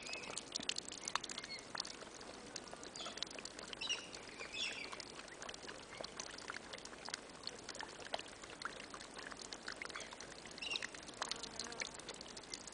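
Faint scattered bird chirps over a soft background of small clicks and a light trickling hiss.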